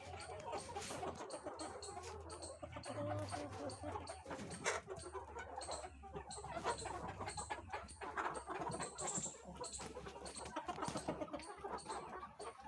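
A large flock of chickens clucking and calling, many birds at once in overlapping, irregular calls.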